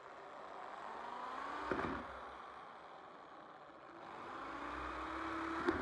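Electric drill running, its twist bit boring holes into a wooden board. The motor's pitch rises slowly twice, each time ending in a short crunch, about two seconds in and again near the end.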